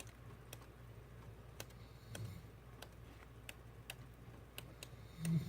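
Faint, scattered light clicks and taps of card-making papers and kit pieces being handled, over a faint low hum.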